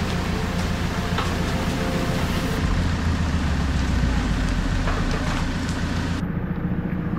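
JCB telescopic handler's diesel engine running steadily, with the hiss of heavy rain and a few drops tapping close by.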